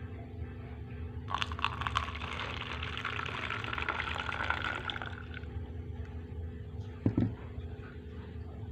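Hot coffee poured into a cup for about four seconds, the tone of the stream rising slightly as the cup fills. A single knock follows a little later, over a steady low hum throughout.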